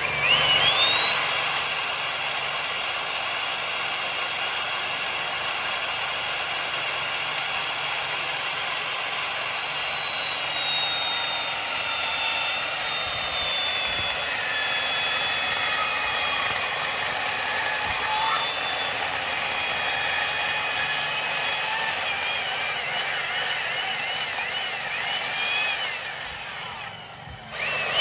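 Electric chainsaw starting with a quickly rising high whine, then running steadily as it cuts into a wooden log. Its pitch slowly sags and wavers as the chain works under load. It cuts off about a second before the end and starts again.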